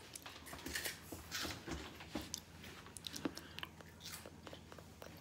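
Someone chewing and crunching Flaming Hot Monster Munch corn crisps: a run of irregular, faint crisp crunches.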